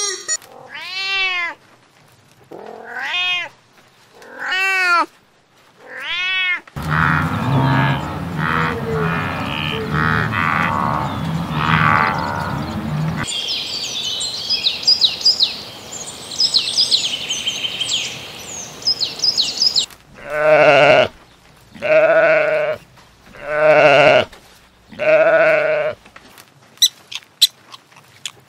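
A run of different animal sounds: first four calls that rise and fall in pitch, then a stretch of low rumbling noise, then high chirping, then five loud drawn-out calls about a second apart, and fast clicking near the end.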